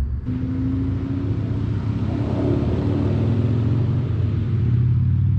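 Motor vehicle engine running with a low, steady rumble and faint drifting engine tones, growing slightly louder near the end.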